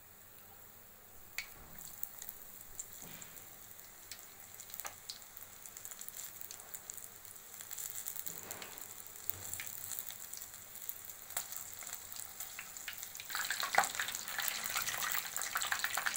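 Batter-coated green chillies (mirchi bajji) frying in hot oil in a kadai: faint scattered crackles at first, slowly growing louder. About thirteen seconds in it swells suddenly into a dense, loud sizzle.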